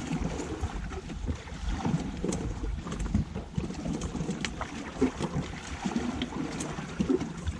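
Sea water washing against the shore, with wind buffeting the microphone and a few light clicks.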